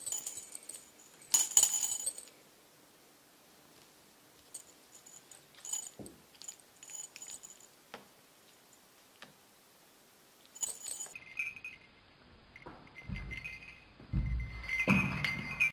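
Small metal bell on a hanging feather cat toy jingling in irregular bursts as a cat bats and bites at it, with a few dull thumps near the end.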